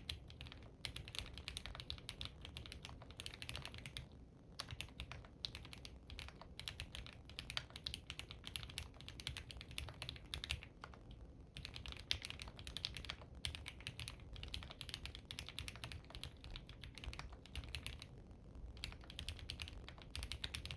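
OwLab Spring mechanical keyboard with lubed Gateron CJ linear switches on a POM plate, typed on fast in continuous runs of keystrokes with short pauses about four, eleven and eighteen seconds in. Recorded on a phone's microphone.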